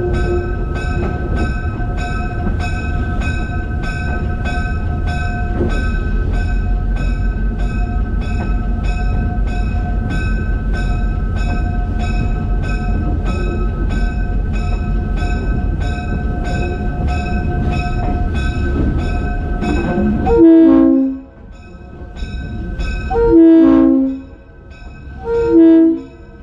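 EMD 567 diesel prime mover of a CF7 locomotive running under load, with the locomotive bell ringing steadily at about two strokes a second. About twenty seconds in, the air horn sounds two long blasts and then a short one, the opening of a grade-crossing signal.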